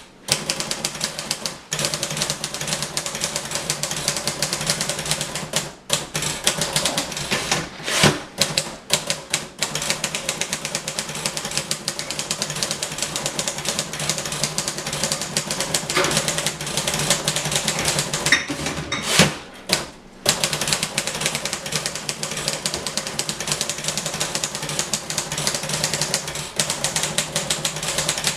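Royal Quiet De Luxe portable manual typewriter typed fast and continuously: a rapid clatter of keystrokes, broken by a few brief pauses.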